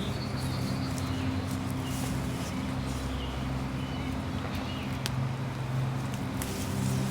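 A steady low mechanical hum, like a motor running nearby, with faint bird chirps and calls over it.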